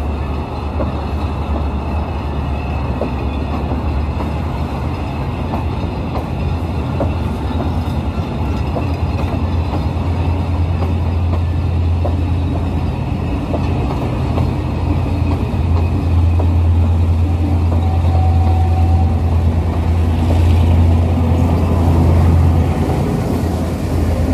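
Passenger train coaches rolling past on the rails: a steady low rumble of wheels on track with faint scattered clicks.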